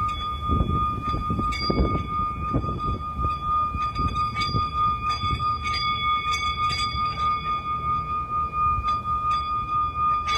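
Singing bowl ringing with one steady high tone and fainter higher overtones, over a low rumbling noise with scattered light clicks.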